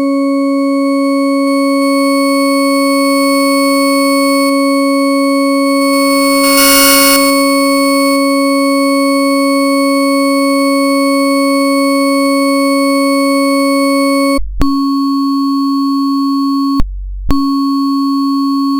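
Synthesized Weierstrass-function tone: a steady, organ-like chord of pure tones stacked an octave apart, the lowest near 270 Hz. About seven seconds in, a brief hiss brightens it. About fourteen seconds in, a short break with a click drops one of the upper tones, and near the end the sound cuts out for about half a second.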